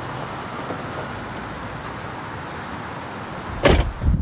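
A person climbing out of a two-door coupe's back seat, over a steady hiss of outdoor background noise. About three and a half seconds in comes a sudden loud thump and rush of noise.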